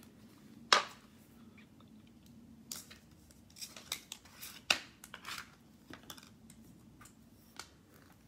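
Nail-stamping tools working a metal stamping plate: short scratchy scrapes and small clicks as polish is scraped across the plate and picked up with a silicone stamper, after one sharp click just under a second in.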